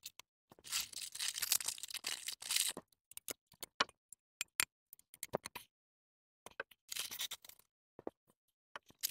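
Clear plastic packaging wrap crinkling and rustling in bursts as metal desk frame pieces are pulled out of it, with scattered light clicks and taps between.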